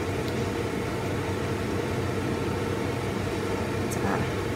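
Steady low rushing noise of the kitchen stove area while a curry cooks in a wok on a gas hob, with a light scrape of the spatula against the wok about four seconds in.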